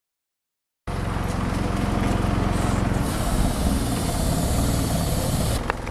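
After a second of silence, the diesel engine of a Merlo telescopic handler runs steadily, with a low, even hum. A short click near the end.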